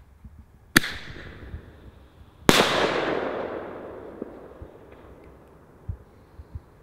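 A 45 mm firework ball shell is fired from its mortar tube with a sharp bang. About a second and a half later it bursts overhead with a second bang, which echoes and fades away over a couple of seconds.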